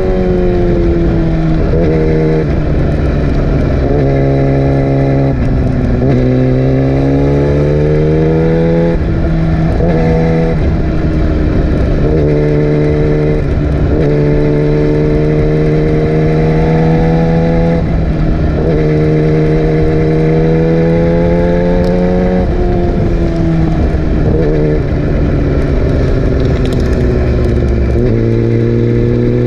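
Yamaha R6's inline-four engine revving hard under way, its pitch climbing and dropping again and again as it is run up through the gears and eased off between pulls.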